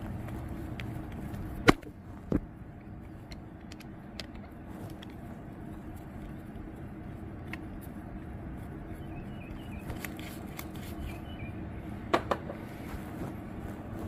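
A screwdriver working the main jet loose from a small-engine carburetor, metal on metal. There are two sharp clicks about two seconds in and a few smaller ones near the end, over a steady low hum.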